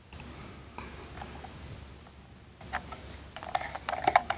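Tweezers working a vinyl decal onto a plastic climate-control button, giving quick, irregular light scratches and taps that start about two-thirds of the way in.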